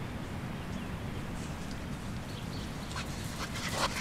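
Steady low wind and shore ambience on a sandy beach, with a few faint short sounds scattered through. Near the end comes a quick run of louder scuffs as a dog trots up close over the sand.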